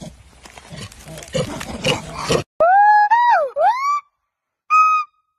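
A gibbon calling: loud, clear whoops that swoop up and down in pitch, then one short held note about a second later. Before it, a scuffling, rustling noise as a macaque rummages in a backpack.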